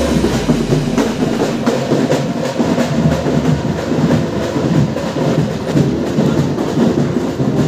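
Busy street-fair din: many mixed voices and faint music over a steady rumbling noise, with no single sound standing out.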